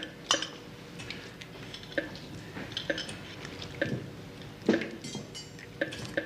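Intensive-care heart monitor beeping with the pulse, short beeps about once a second, amid light metallic clinks and knocks of medical equipment being handled.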